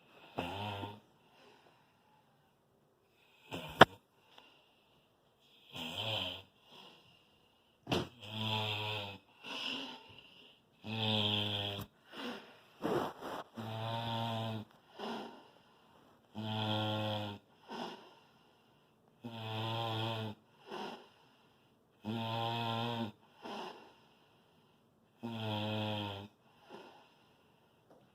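Loud snoring in a steady rhythm, one snore about every three seconds, each about a second long with a shorter, fainter breath after it. A sharp click sounds about four seconds in and another about eight seconds in, before the rhythm settles.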